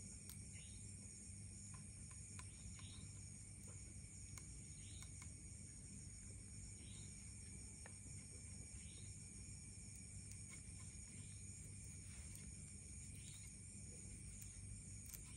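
Faint night ambience: crickets trilling steadily, with a short chirp repeating every second or two over a low steady hum and a few faint ticks.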